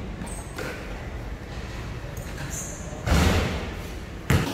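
A basketball shot hitting the hoop about three seconds in, a loud bang that rings on briefly, then one sharp ball bounce on the court floor near the end.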